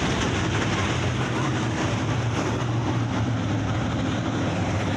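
A field of dirt-track modified race cars running at racing speed around the oval, their V8 engines blending into one steady, dense engine noise.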